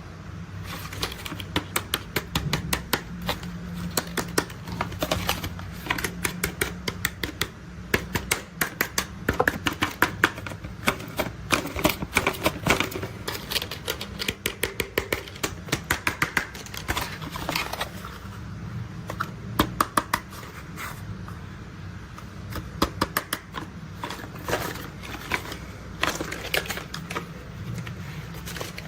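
Plastic toy construction vehicles being handled: rapid, irregular clicks and rattles in clusters over a steady low hum.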